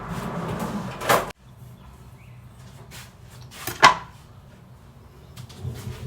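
Kitchen knocks: a sharp knock about a second in and a louder one near four seconds, like a cupboard door or a board being handled. A steady background hum cuts off suddenly just after the first knock.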